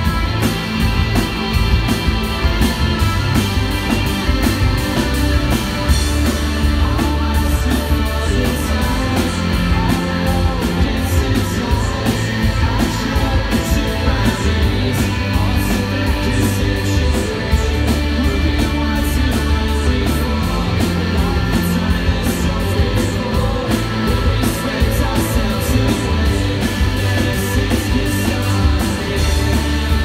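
Live rock band playing loud: electric guitars over bass and drums, with steady cymbal hits.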